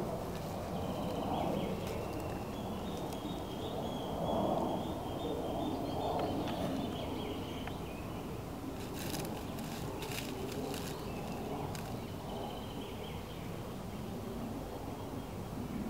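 Outdoor woodland ambience: a steady low rustling haze, with a bird singing a high, rapidly repeated trill for several seconds that breaks off and returns briefly later. A few light clicks come about two-thirds of the way through.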